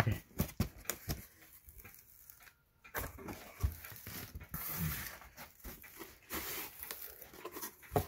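Cardboard box being opened by hand: packing tape tearing and the flaps rustling and scraping in irregular bursts, with a few light knocks.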